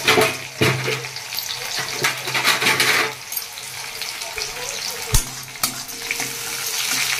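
Sliced onions and mustard seeds sizzling in hot oil in a kadai: a steady frying hiss with scattered pops and clicks. Near the end a metal spatula stirs the onions against the pan.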